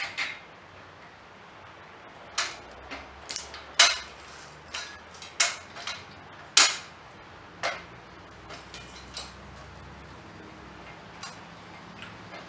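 Irregular sharp metal clicks and clanks of a hydraulic ram and steel pin being fitted into a steel lift-jack frame, about a dozen taps that bunch together in the middle and thin out toward the end.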